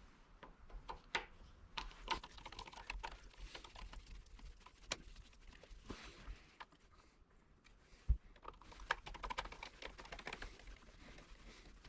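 Irregular light clicks and taps of small metal door-latch parts being worked loose and handled by hand, with one sharper knock about two-thirds of the way in.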